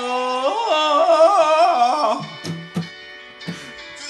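A young male voice sings a long held note, the pitch wavering and then running through a quick melodic flourish, breaking off about two seconds in. After that a guitar plays softly with a few sharp plucked strokes.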